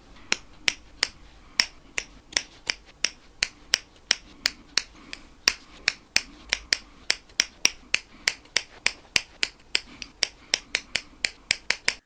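Knitting needles clicking against each other while a row is bound off, sharp clicks about three a second, quickening a little near the end.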